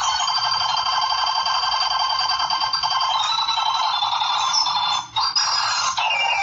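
Rapid, continuous clicking, so fast the clicks run together, with a few thin ringing tones over it. It cuts out briefly about five seconds in.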